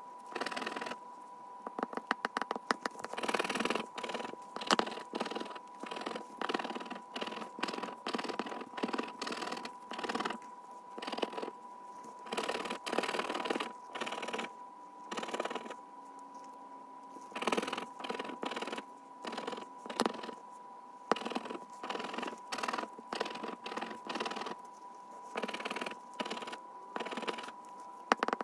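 Plastic scratcher tool scraping the coating off a paper scratch-off lottery ticket in quick, short repeated strokes, in bursts with brief pauses between them. A faint steady high tone runs underneath.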